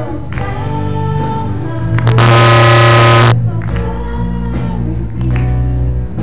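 A song with singing over a musical backing. A loud, harsh burst of noise about two seconds in lasts about a second.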